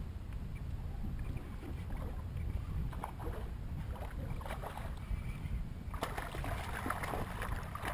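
Low wind rumble on the microphone with water lapping against a kayak's hull; about six seconds in a brighter, crackling splash of water joins it.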